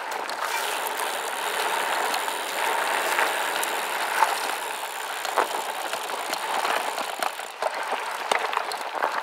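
SCOTT Addict Gravel 10 gravel bike rolling over a dirt and gravel road: a steady rush of tyre noise with scattered clicks and rattles from the bike.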